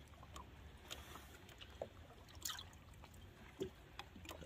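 Faint splashing and dripping of water in a boat's livewell as a hand gropes in it for a bass, with a few light clicks and knocks scattered through.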